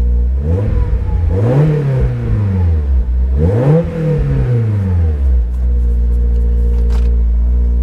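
Honda S2000's four-cylinder engine idling, then revved hard twice in a row while the car stands still, each rev rising to around 6,000 rpm and falling back, before it settles to a steady idle.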